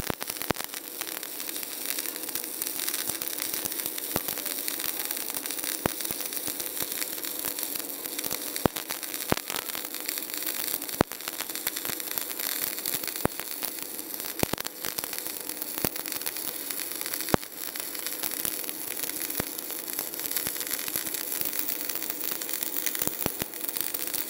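Stick-welding arc burning on a 4 mm electrode: a steady crackling hiss with frequent sharp pops.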